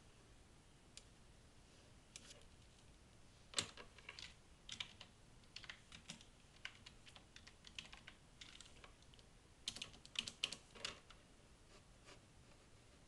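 Faint, irregular light clicks and taps, some in quick clusters, the densest run coming a little before the end, over a quiet background.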